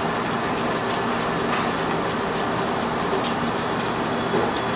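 Steady rushing noise of room ventilation, with a few faint crisp snaps as the outer leaves of a globe artichoke are cut and broken off with a paring knife.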